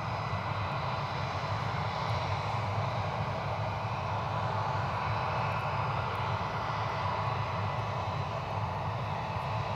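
Jet airliner engines running steadily: an even rush of noise with a few high whining tones on top.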